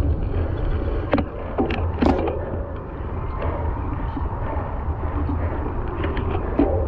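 Cyclocross bike ridden slowly through mud and wet leaves: a steady low rumble on the microphone with tyre noise, and a few sharp clunks and rattles from the bike over bumps, about a second in, twice around two seconds, and near the end.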